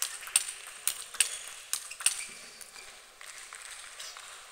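Table tennis rally: the ball clicking off the rackets and the table, about six sharp clicks over the first two seconds, then the rally stops.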